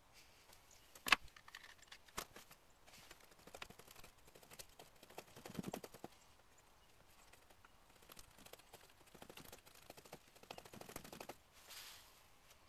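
Sharp knocks and taps of carving tools and a trembling aspen spoon blank against a wooden chopping stump, with one loud knock about a second in, then irregular lighter taps and short scrapes.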